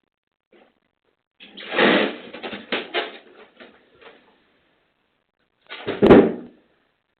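A door rattling and knocking, then shut with a single loud bang about six seconds in, through a doorbell camera's microphone.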